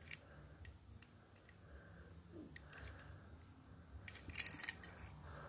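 A die-cast toy car being handled in the fingers, giving scattered faint clicks and rubbing, with a quick run of louder clicks about four seconds in.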